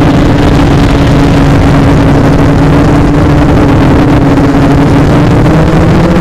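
Electric motor and propeller hum of a small FPV aircraft, heard through its onboard camera's microphone: a loud, steady drone at a nearly constant pitch under a rushing noise.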